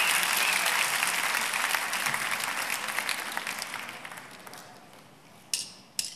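Studio audience applause dying away over about five seconds. Near the end come two sharp clicks about half a second apart, the start of a drummer's stick count-in for the band.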